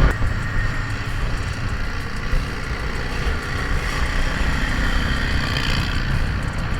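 Motorcycle running steadily along the road, engine and road noise heard from the rider's seat.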